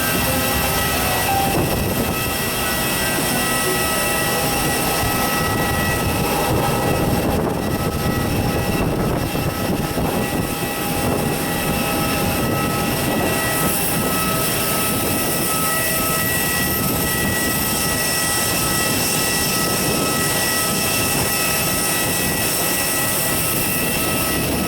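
Airbus A320 taxiing after landing, heard inside the cabin: a steady whine of several held tones from the jet engines at idle, over a broad rumble of cabin and rolling noise.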